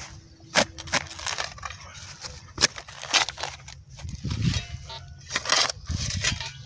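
Steel hand spade digging into grassy soil: several sharp, irregular chops of the blade into the turf and scrapes of earth, cutting out a plug to recover a buried metal-detector target.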